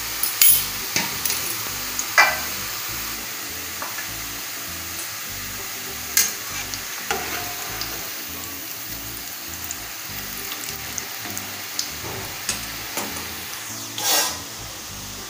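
Gathiya strands of gram-flour dough deep-frying in hot oil in a kadai, a steady sizzle. A spatula turning the strands knocks and scrapes against the pan a few times, most sharply about two seconds in, with a longer scrape near the end.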